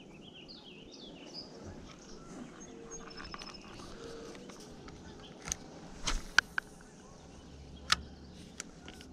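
Birds chirping over quiet lakeside ambience, then a few sharp clicks and knocks from a fishing rod and spinning reel being handled in a kayak, the loudest about six and eight seconds in.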